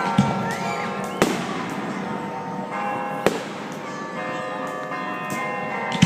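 Fireworks going off: four sharp bangs spread a second or two apart, over a steady background of music with sustained held tones.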